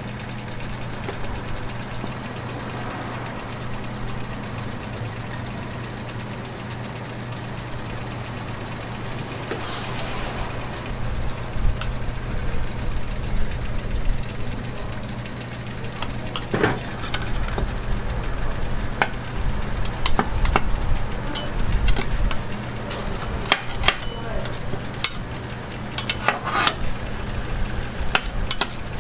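Street-food cooking on a flat-top griddle: a steady sizzle over a constant low hum. From about halfway on, a metal spoon and spatula clink and scrape against the griddle and the steel pizza molds, more often toward the end.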